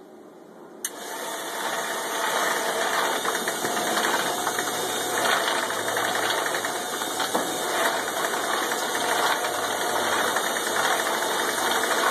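Homemade ball mill with its star-roller drum switched on about a second in with a click. It runs up quickly and then keeps running steadily, the motor's noise mixed with the rattle of the milling jar, which is loaded with lump charcoal, tumbling.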